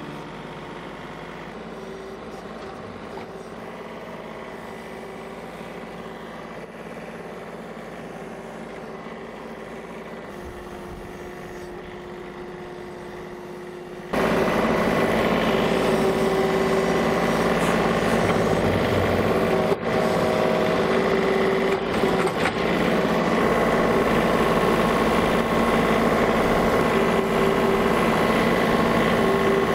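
John Deere 3039 compact tractor's diesel engine running steadily while hauling a loader bucket of mulch. It is a quieter steady hum at first, then about halfway through it suddenly becomes much louder and closer, a steady drone heard from the operator's seat, with a few brief clicks near the end.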